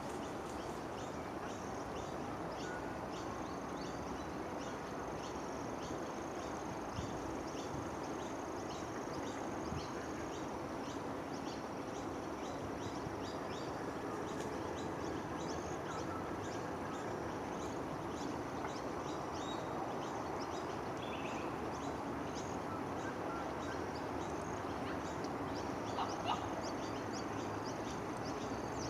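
Outdoor wildlife ambience: a steady hiss under a thin high insect drone and many quick high chirps. A short louder call about 26 seconds in. The darter's yawn itself makes no clear sound of its own.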